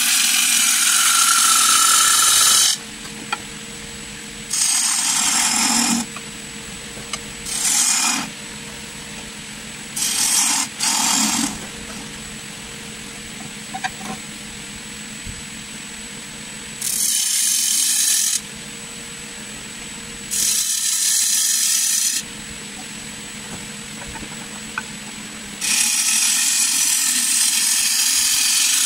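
A gouge cutting the outside of a spinning wooden bowl blank on a wood lathe. Bursts of loud shaving hiss, each a second or two long, about eight in all. Between cuts the lathe runs more quietly, with a faint steady whine.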